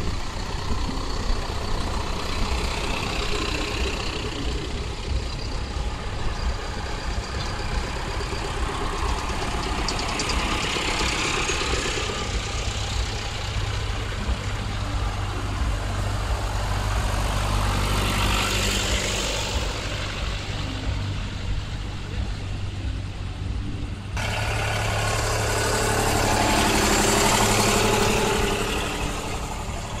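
Diesel farm tractors, John Deeres among them, running at a steady low drone as they drive past one after another towing ploughs, each swelling louder as it comes close and then fading. The sound changes abruptly about three-quarters of the way through.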